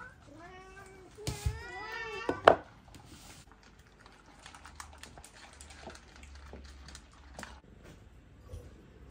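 Domestic cats meowing for food: a few drawn-out, wavering meows in the first two and a half seconds. After that come faint scattered clicks as the cats eat from their food bowls.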